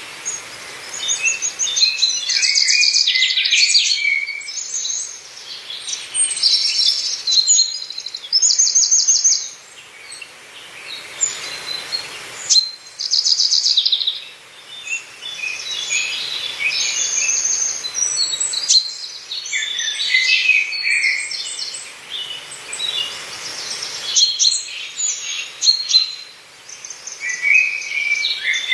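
Several songbirds singing and calling together, short high chirps and rapid trills overlapping one after another, over a faint steady hiss of background noise.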